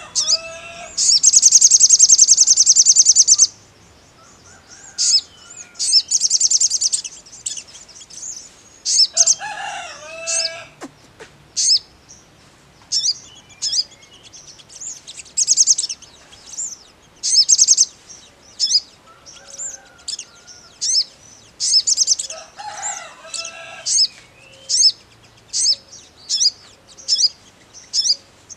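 Male olive-backed sunbird (sogon) singing in its cage. It opens with a loud, very rapid high trill, gives a second trill a few seconds later, then a long series of sharp, high chirps at a bit more than one a second, with a few lower warbled notes between.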